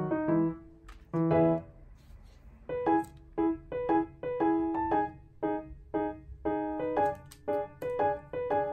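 Background piano music: a light tune of short, separate notes, with a brief pause after about a second and a half before the tune picks up again.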